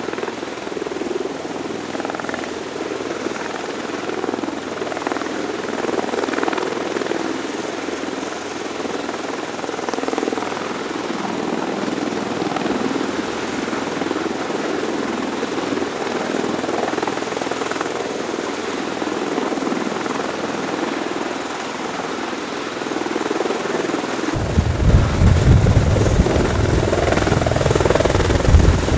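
Hovering CV-22 Osprey tiltrotors: steady proprotor and turboshaft engine noise. About 24 s in, it turns louder with a deep rumble.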